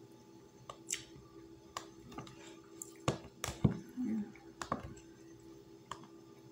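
Eating sounds: a fork clicking against a plastic food container as bites are taken, heard as scattered short sharp clicks, the loudest about three and a half seconds in. A steady low hum runs underneath.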